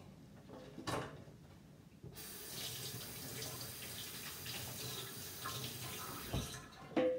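Kitchen faucet turned on about two seconds in, water running onto a bunch of bora (long beans) being rinsed in a stainless-steel sink for about four and a half seconds, then shut off. A couple of short knocks near the end, the last with a brief ring.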